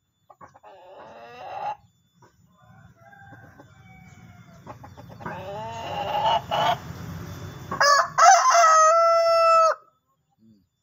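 Domestic rooster crowing: softer clucking calls first, then a long crow from about eight seconds in that ends on a drawn-out held note and stops shortly before ten seconds. The owner likens its crow to that of a contest chicken.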